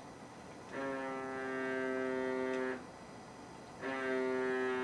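Mobile phone on a wooden table ringing with an incoming call: a steady buzzing tone that sounds twice, each time for about two seconds, with about a second's pause between.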